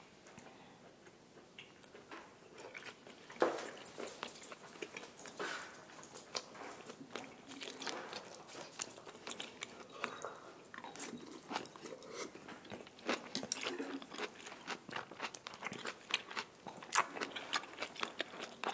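Close-miked eating sounds: a person chewing a mouthful of grilled beef, with many short wet clicks and smacks that get busier in the second half.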